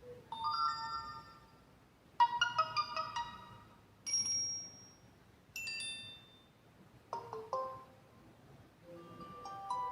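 Samsung Galaxy S2 notification tones played back one after another through the phone's speaker: about six short electronic chimes, each lasting under a second, with brief pauses between them.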